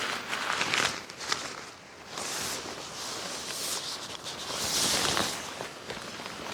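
Footsteps and rustling, irregular, with a few sharp clicks about a second in and a louder rustling swell near the end.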